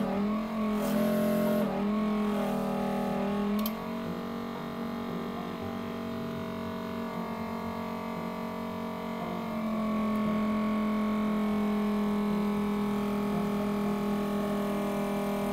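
Vacuum pump of a screen-separator machine running with a steady hum while its suction holds the phone's glass. Its pitch shifts in small steps during the first few seconds, and the hum grows louder about ten seconds in.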